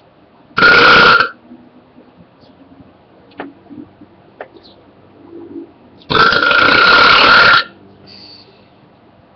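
A person belching loudly twice: a short burp just after the start, then a longer drawn-out one of about a second and a half about six seconds in.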